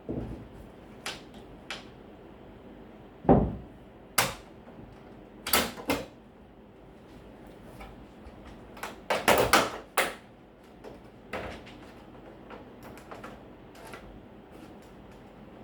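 Irregular clicks, knocks and rattles of tools and TV parts being handled during repair work, with a heavier thud about three seconds in and a quick burst of knocks around nine to ten seconds.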